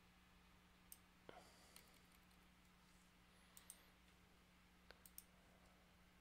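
Faint computer mouse clicks, about eight scattered through, some in quick pairs, over a low steady hum.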